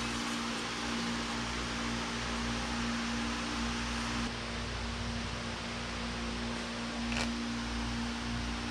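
Steady hum and hiss of an electric shop fan running, with a brief light click about seven seconds in.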